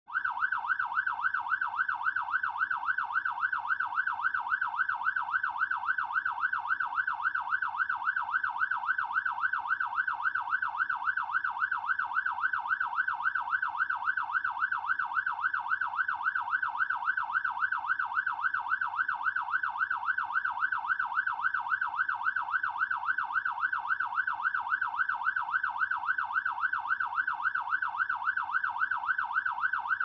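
Fire truck siren in a fast yelp, its pitch rising and falling about twice a second without a break, heard from inside the truck's cab with a faint low rumble beneath it.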